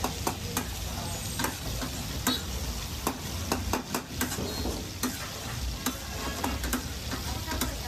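Chicken frying in a black metal karahi (wok) with a steady sizzle, while a long metal spatula stirs it, clacking and scraping against the pan in irregular strikes over a steady low rumble.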